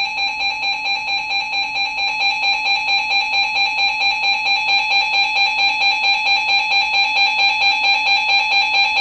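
Emergency alert attention tone played through a radio receiver's speaker: a steady, loud, pitched alarm tone pulsing about four or five times a second. It announces an incoming severe thunderstorm warning.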